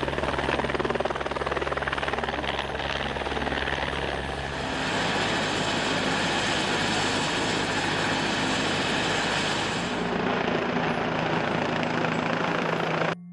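Helicopter sound effect: rotor and engine running steadily, changing in tone about four and a half seconds in, then cutting off abruptly near the end.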